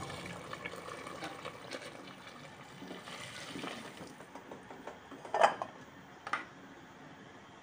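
Hot water poured in a stream into a pot of simmering sauce, splashing steadily for about four seconds, followed by two short sharp knocks.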